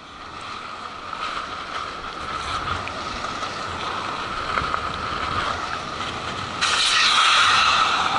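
Strong gusting wind and rain from a passing whirlwind squall, buffeting the microphone, with the kite's canopy fabric flapping close against it. The wind grows louder about six and a half seconds in.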